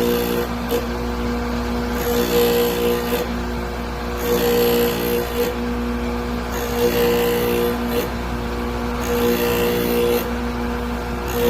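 Drill-bit grinding machine running with a steady motor hum, while a drill bit is pressed to the grinding wheel in repeated passes of about a second each, every pass adding a high grinding noise.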